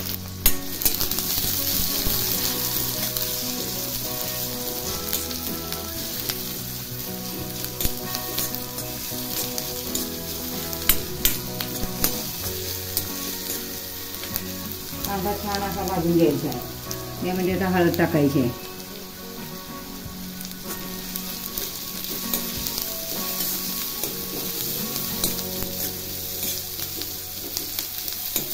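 Chopped onions sizzling in hot oil with mustard seeds and cumin in a kadhai, with a steel ladle stirring and scraping them around the pan. A short voice-like sound rises over the sizzle about halfway through.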